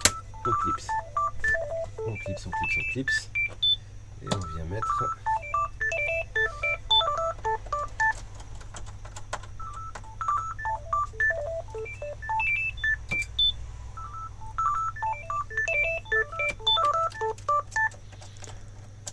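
Background music: a melody of short, clean electronic notes at changing pitches, with occasional sharp clicks from screwdriver work on the PC chassis.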